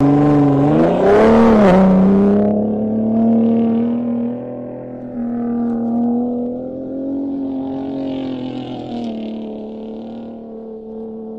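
Ford F-150 Raptor pickup's engine revving up hard in the first two seconds, then pulling steadily with the pitch wavering as it drives over sand, gradually fading.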